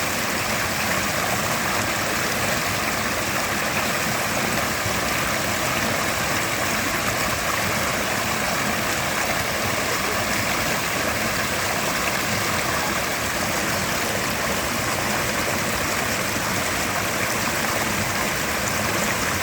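Mountain river rushing steadily over rocks, a constant loud hiss of white water.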